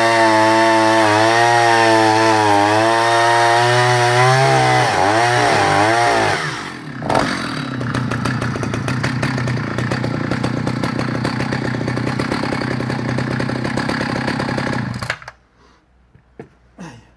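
Vintage Husqvarna L65 two-stroke chainsaw running at high revs through timber, its pitch dipping and wavering under load. About six seconds in it drops to a lower, rougher idle, and about fifteen seconds in the engine stops suddenly.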